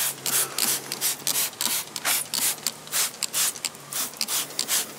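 Hand trigger spray bottle squirting diluted acid cleaner onto a motorcycle engine, pumped rapidly at about three short hissing squirts a second.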